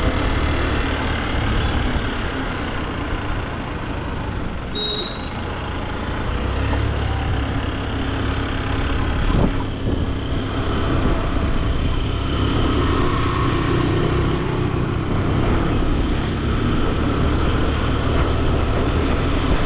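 Riding on a motorbike: steady wind rush over the microphone and road noise, with the bike's engine running underneath. A brief high tone sounds about five seconds in.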